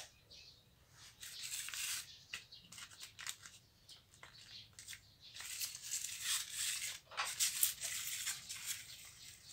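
Paper rustling and scraping in uneven bursts as a folded-paper race car is pressed and pushed across a tiled floor, with short crackles; the busiest stretches come about a second in and again from about halfway.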